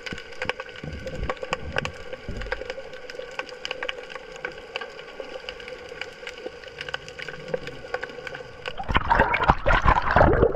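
Underwater sound from a submerged GoPro in a strong current: a steady wash of water with a faint hum and scattered sharp clicks and crackles. About nine seconds in, a louder surge of churning, sloshing water takes over.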